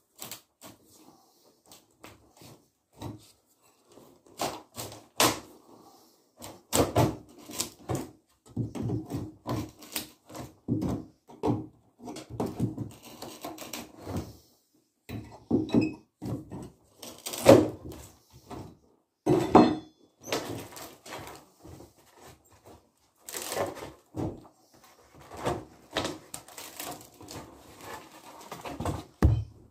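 Steel crowbar levering up old wooden floorboards: irregular cracks, creaks and knocks of wood and metal. A loosened board is lifted out near the end.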